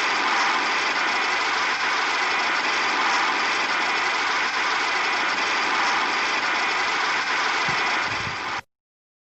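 Storm sound effect: a loud, steady rushing noise with no separate strikes or gusts, cut off suddenly near the end.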